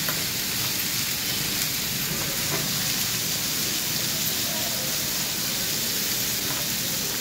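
Chopped onions frying in hot oil in a pan, a steady sizzle, stirred with a wooden spatula.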